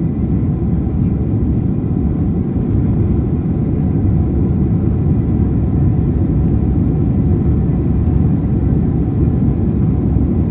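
Cabin noise inside a Boeing 767 on takeoff: the twin jet engines and airframe give a loud, steady low rumble with a faint high whine.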